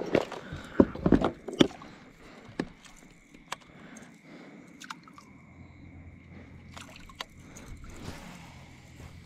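A plastic tackle box clattering and clicking shut in the first second or two, then a kayak paddle dipping and sloshing through calm water with the odd light knock.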